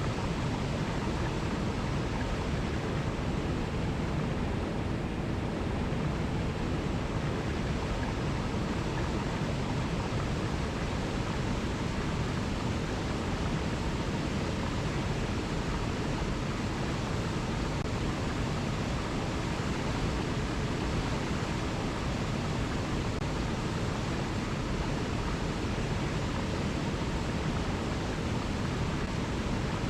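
Alpine mountain river rushing over rocky cascades, a steady even roar of water without letup.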